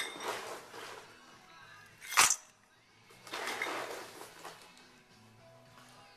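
Faint background music with a few sharp clinks or knocks, one at the start and a loud one about two seconds in, and a rustling, clattering stretch in between.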